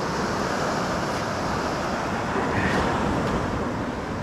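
Steady wash of surf on a beach, mixed with wind noise on the microphone.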